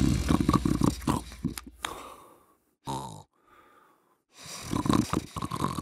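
Dog snoring in long rattling breaths: a snore for the first two seconds, a short snort about three seconds in, then another long snore near the end.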